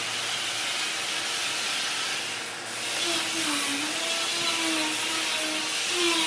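Steady hiss of a machine running, with faint wavering tones coming in about halfway through.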